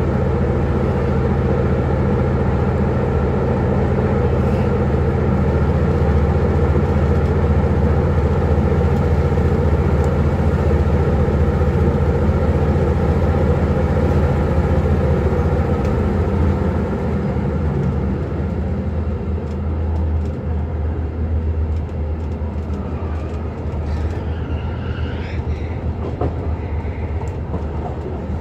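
MR-class diesel multiple unit under way, its diesel engine running with a steady low drone. About two-thirds of the way through the engine note eases off and the train runs on more quietly, with a brief high squeal that wavers in pitch near the end.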